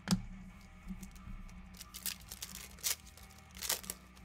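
Foil wrapper of a 2020 Select Baseball card pack being torn open and crinkled, in several short crackling bursts, after a sharp tap at the start.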